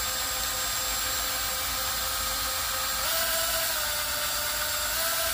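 Ryobi cordless drill running steadily as it stirs liquid plastisol for soft-plastic baits. Its whine steps up in pitch about three seconds in.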